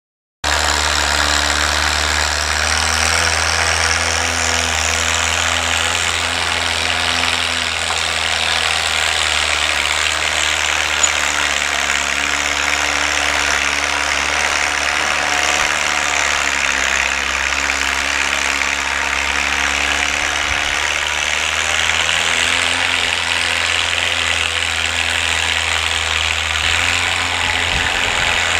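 Small four-cylinder engine of a 1948 Farmall Cub tractor running steadily at a constant speed, with a broad hiss over it. It starts about half a second in and hardly changes.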